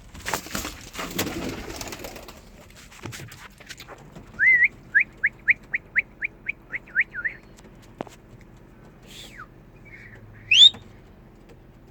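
Birds at a pigeon loft: a rustling burst at the start, then a quick run of about a dozen high chirps, some four a second, and near the end a falling whistle and a sharp rising one.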